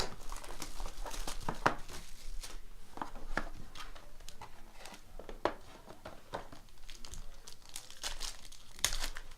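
Box and foil wrapper of a trading-card pack being torn open and crinkled by hand, irregular short crackles and rustles of plastic and cardboard.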